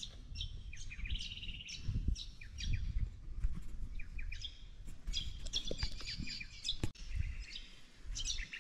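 Several birds chirping and calling in quick series of short, high notes, with some rapid trills.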